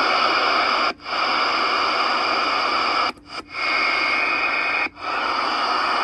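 Galaxy DX-939F CB radio's receiver static hissing from its speaker, cutting out briefly four times as the channel selector is stepped down from channel 20 to 15. A faint steady whistle sits in the hiss for about a second in the middle.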